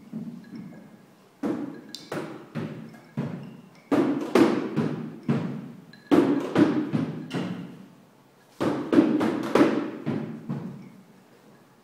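A mallet striking a hard surface in quick runs of several blows, each run ringing and fading before the next begins, about every two seconds.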